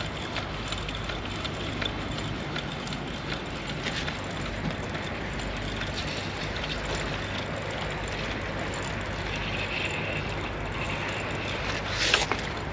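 Steady outdoor background noise with faint scattered clicks, and a single sharp knock about twelve seconds in.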